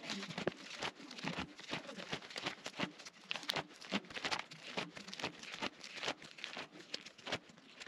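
Plastic sheet protectors in a ring binder crinkling and rustling as pages are flipped, a dense run of small crackles.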